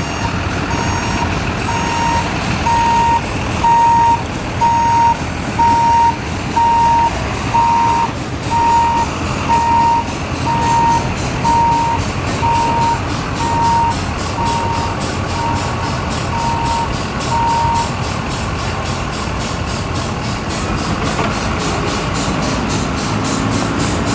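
A skid-steer loader's reversing alarm beeps about once a second for most of the first eighteen seconds. Under it a steam traction engine runs with a quick, even beat.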